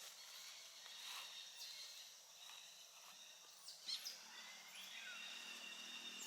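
Faint high-pitched animal calls: scattered gliding chirps, one sharper chirp about four seconds in, then steady high whistling tones near the end.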